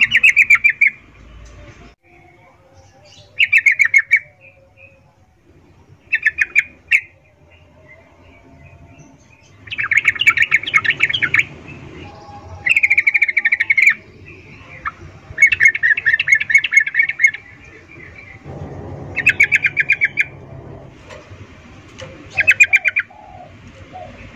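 Female yellow-vented bulbul's chattering 'ngecuplik' breeding call: eight bursts of rapid, clicking notes a few seconds apart, some short and some drawn out for a second or two. It is the call of a female in breeding condition calling to a male.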